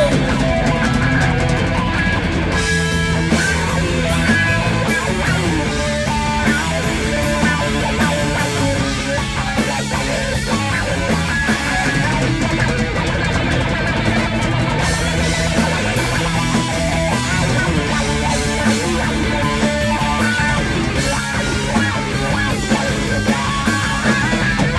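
A live stoner-doom rock band playing: heavy electric guitar riffing over bass guitar and a drum kit, loud and without a break.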